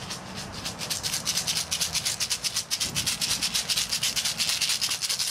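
A hand-held maraca shaken fast in an even rhythm, a quick run of dry rattling strokes, several to the second.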